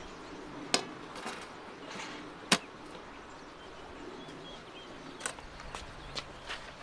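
Aluminium lid knocking against a round metal baking tray as it is put on: two sharp knocks, then a few lighter taps near the end. Birds chirp faintly in between.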